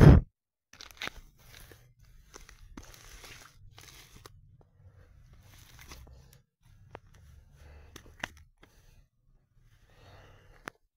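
A heavy thump right at the start, then scattered crunching and rustling of dry grass and leaf litter underfoot, with a few sharp clicks.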